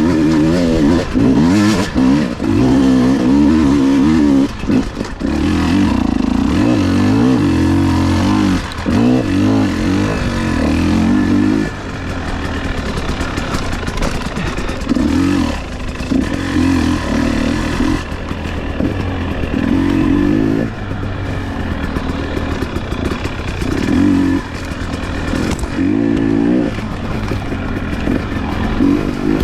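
Enduro dirt bike engine revving up and down as it is ridden, held on the throttle for about the first twelve seconds, then coming in shorter bursts with the revs dropping in between.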